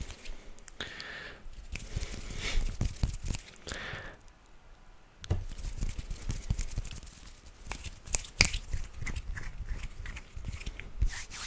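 Close-miked ASMR mouth sounds: a dense, irregular run of wet clicks and smacks, with a quieter pause of about a second a little before the middle.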